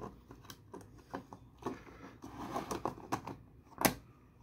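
Light plastic clicks and taps as a 3D-printed case and its front panel are handled and pressed together, with one sharper click near the end.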